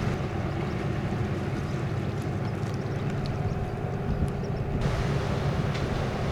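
Boat engine running with a steady low rumble and faint hum, mixed with wind noise on the microphone.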